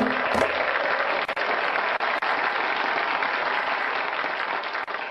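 Audience applause after a live-recorded Umbanda ponto cantado. The last drum beat and sung note end about half a second in, and the clapping fades slowly toward the end.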